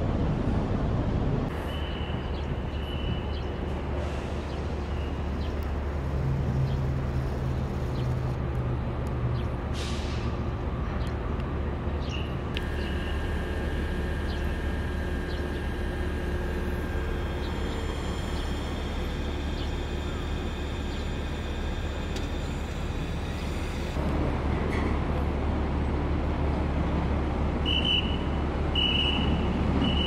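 Harbour ambience at a ferry quay: a steady low mechanical hum from docked ferries and port machinery. A higher steady whine comes in during the middle, and a few short high-pitched beeps sound, several of them near the end.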